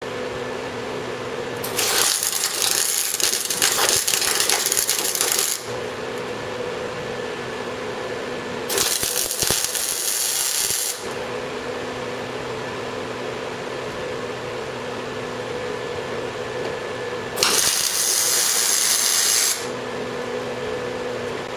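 MIG welding aluminium with a Lincoln Magnum 100SG spool gun: three bursts of arc crackle and hiss, the first about four seconds long and the others about two, with a steady hum between them.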